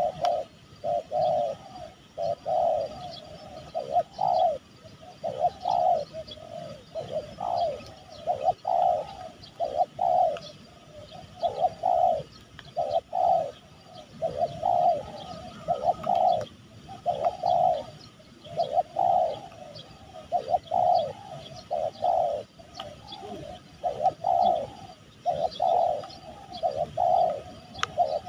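Spotted doves cooing over and over in quick phrases of several notes, with short gaps between phrases. Faint chirps of small birds sound behind them.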